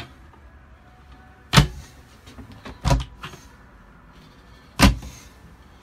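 Caravan storage cupboard doors on piano hinges being handled: three sharp knocks with a few lighter clicks between the first two.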